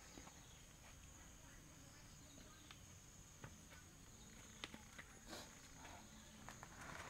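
Near silence: a faint, steady high-pitched insect drone, with a few faint scattered ticks and crackles.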